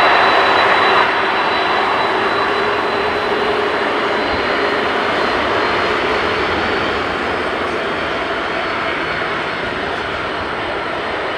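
Boeing 747-400's four turbofan jet engines running as the airliner taxis: a loud, steady jet rumble and hiss that eases off slowly.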